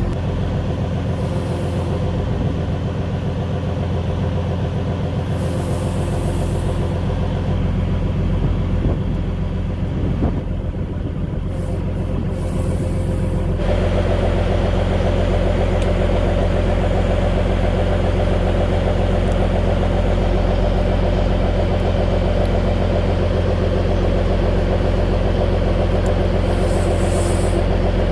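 Cargo boat's diesel engine running under way with a steady low drone; about halfway through it grows louder and harsher.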